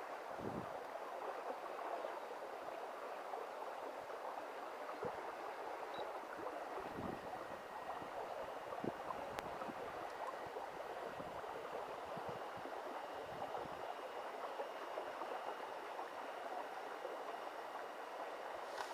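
A steady rushing noise like running water fills the background. Faint thin whines from the small electric motors of a radio-controlled model tractor and tipping trailer sit over it, with a few light clicks.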